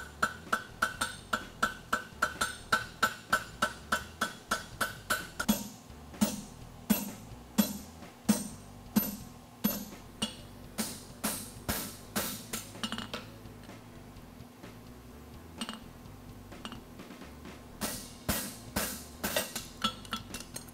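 Hammer blows on a hot steel horseshoe at the anvil. First comes a fast run of ringing strikes, about four a second; then slower, heavier blows about one a second, falling on a handled set tool held to the shoe. After a lull there are a few more strikes near the end.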